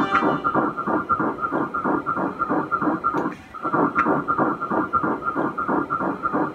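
Fetal heartbeat on an ultrasound Doppler, a fast, even train of whooshing beats that drops out briefly about halfway through.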